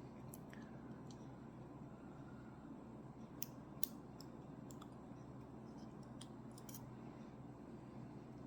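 A few sparse, sharp little metal clicks as the small pins and drivers of a Ruko 600 lock core are handled during reassembly, over a faint steady hum.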